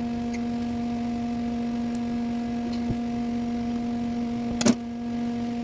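Steady electrical hum, one low tone with fainter higher overtones, with a sharp metallic click near the end and a couple of faint ticks earlier.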